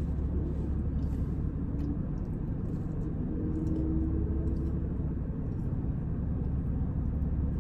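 Steady low rumble of a car's idling engine, heard inside the cabin, with a few faint small clicks.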